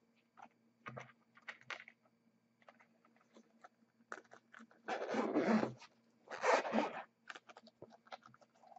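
Zipper of an Oakley soft sunglasses case being pulled open in two long strokes around the middle, with light taps and rustles of the case being handled before and after.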